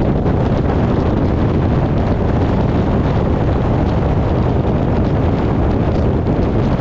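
Loud, steady wind rumble on the microphone.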